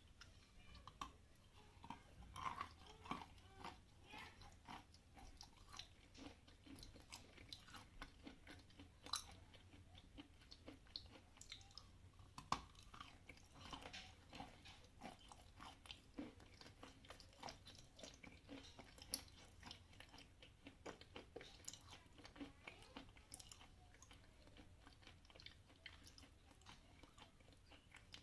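Khrapovsky chalk being chewed close to the microphone: many small, irregular crunches and clicks as the chalk is bitten and ground between the teeth.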